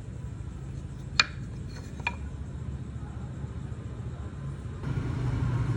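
Two light clinks with a short ring, about a second apart, over a steady low rumble.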